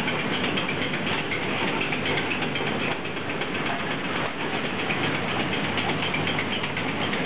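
Wooden-stick packing machine running: a steady, dense mechanical clatter of its feeder mechanism and the wooden sticks in its hoppers.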